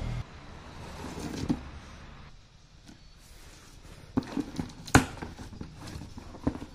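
Hands handling and opening a taped cardboard parcel: cardboard and packing tape rustling and scraping, with a few sharp taps and knocks, the loudest about five seconds in.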